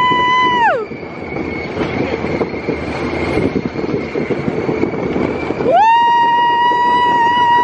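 Test Track ride car speeding around the outdoor loop, with a dense rush of wind and track noise. Over it comes a long, high, steady 'woo' cry from a rider, once fading out just under a second in and again from about six seconds in, rising at its start.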